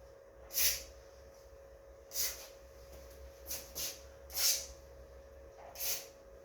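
Aerosol lubricant can sprayed in about six short bursts onto garage-door rollers and bearings, each hiss lasting a fraction of a second.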